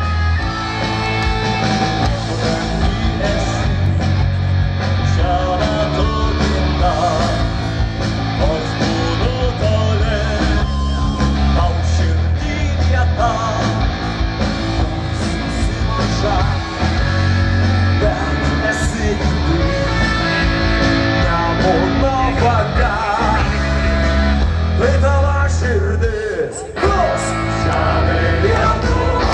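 Live amplified performance of a rock band with a folk ensemble: electric guitars, heavy bass and drums under voices singing together. The music carries on without a break, with a brief drop in loudness near the end.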